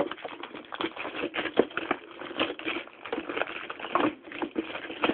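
Clear plastic wrapper crinkling and crackling in quick, irregular bursts as an Irish Setter plays with it.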